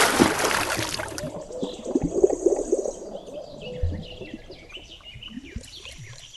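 Fish splashing in water: a loud splash in the first second, then softer irregular sloshing, with small birds chirping in the background.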